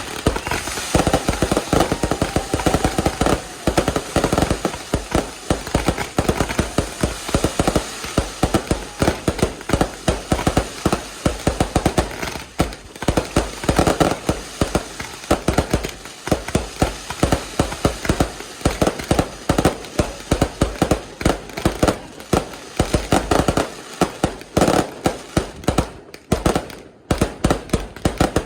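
Fireworks display going off in a dense, continuous barrage of rapid bangs and crackling pops.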